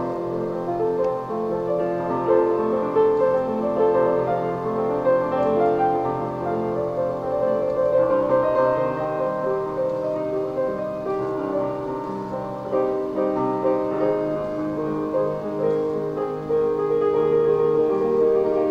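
Solo piano playing, with held notes ringing over one another and no other instruments.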